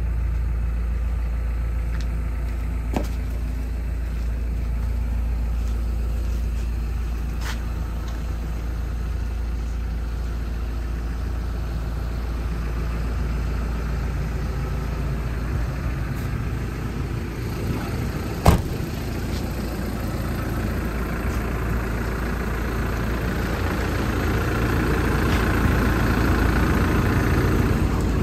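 Hyundai R170W-7A wheeled excavator's diesel engine idling steadily, a little louder near the end, with a single sharp knock about two-thirds of the way through.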